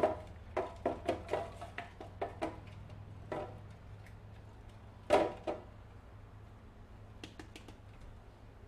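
Scattered light knocks and clicks of a container being handled while feeder crickets are dusted with calcium powder. One louder knock comes about five seconds in, over a steady low hum.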